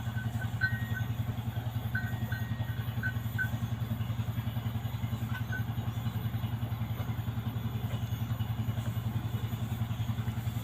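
A small engine running steadily at idle, with a fast even pulse. A few short, high chirps come over it in the first few seconds and again briefly about five seconds in.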